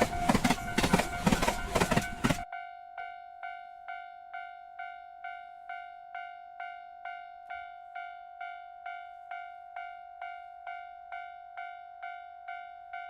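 Japanese railroad-crossing warning bell ringing its 'kan-kan' alarm at a steady pace, a little over two strikes a second. For the first two seconds or so a passing train drowns it out, then stops suddenly, and the bell rings on alone.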